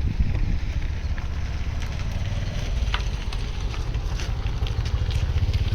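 A vehicle engine running steadily with a low rumble, with a few faint clicks and knocks over it.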